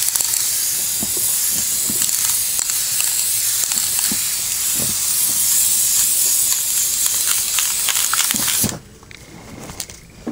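Ironlak aerosol spray-paint can spraying continuously in one long, steady hiss that cuts off about nine seconds in.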